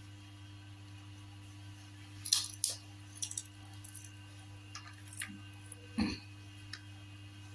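A few short clicks and clinks of tableware as someone eats from a plate, the loudest about two seconds in and another about six seconds in, over a steady low electrical hum.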